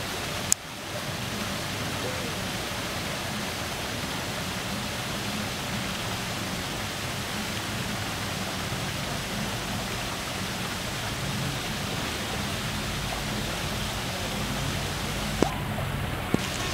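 Small rock waterfalls pouring steadily into a swimming pool, a constant rush of falling water. A sharp click about half a second in, and two smaller ones near the end.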